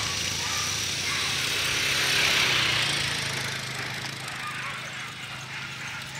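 ATV engine running at low speed as a dog team pulls it past over grass, a steady low hum under a rush of paws, harness and tyres on the grass that swells about two seconds in and then eases.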